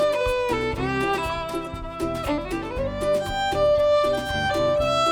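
Instrumental break in an acoustic folk song: a lead melody with sliding notes over a rhythmic plucked accompaniment.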